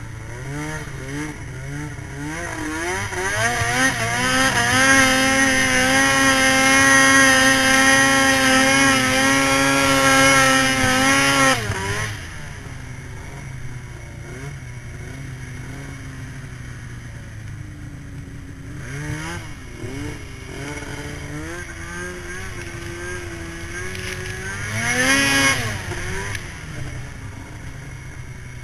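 2010 Arctic Cat M8 mountain snowmobile's two-stroke engine revving up under throttle and held at high revs for several seconds, then dropping sharply as the throttle is closed about halfway through. It runs lower after that, with two shorter revs near the end, the second louder.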